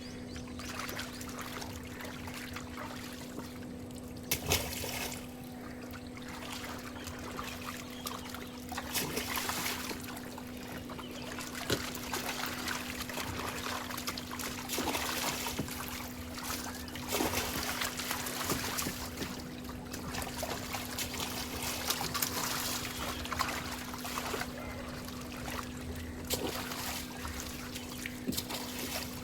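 Water splashing and trickling in irregular bursts, over a steady low hum.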